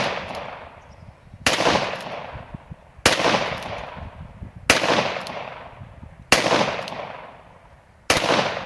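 Ruger Vaquero .45 ACP single-action revolver fired at a slow, steady pace, a shot about every second and a half: five loud shots, with the fading echo of an earlier one at the start. Each shot rings out in a long echo that dies away before the next.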